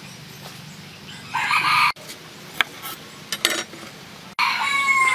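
A rooster crowing twice, once about a second in and again near the end, the second call held steady before dropping off. A few light knocks fall between the calls.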